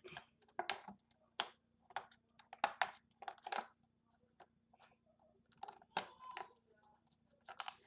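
Tape and packaging on a Beyblade toy box being picked and pulled at by hand: a string of short, irregular crackles and crunches with pauses between them, over a faint steady hum.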